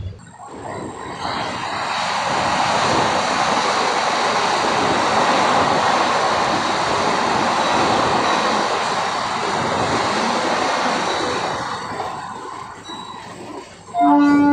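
Mumbai suburban local train running noise, a broad rumble and rattle with some wheel squeal, swelling about a second in, holding steady, then fading away near the end. Right at the end a loud pitched tone begins.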